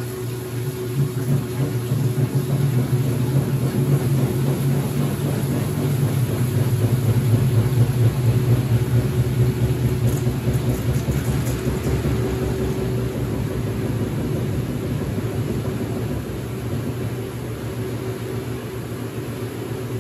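Late-1970s Maytag A806 top-load washing machine running, a steady motor hum that swells about a second in and eases slightly near the end.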